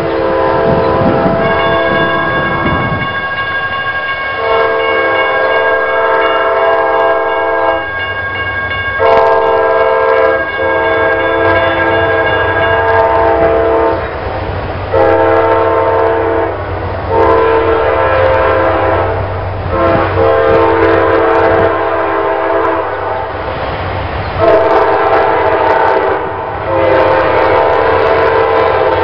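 CSX GE diesel freight locomotive sounding its multi-chime air horn in a series of long blasts with short breaks, the usual warning on approaching a grade crossing. A low diesel engine rumble runs beneath the horn from about a third of the way in.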